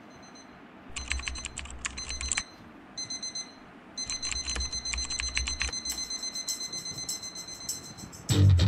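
Alarm going off in bursts of rapid, high-pitched beeps with a low buzz under them, like a vibrating alarm on a hard surface. Loud guitar music comes in just before the end.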